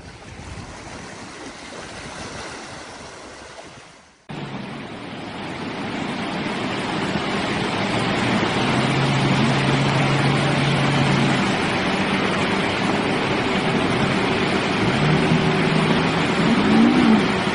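A car wading slowly through floodwater, water sloshing around its wheels. About four seconds in this cuts to a much louder rush of fast-flowing floodwater as a pickup truck drives through it, with a steady engine note that rises in pitch near the end.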